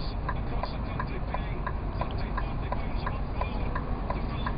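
Turn-signal indicator ticking steadily, about three ticks a second, over the low steady rumble of the Scania R420's idling diesel engine, heard from inside the cab.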